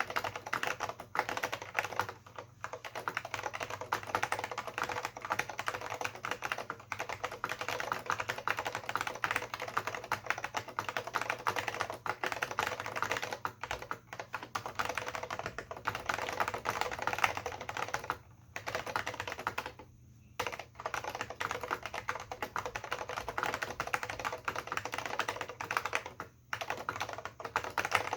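AT&T Unix PC keyboard with Alps SKCM Brown switches and PBT dye-sublimation keycaps, typed on quickly and continuously, with a few brief pauses.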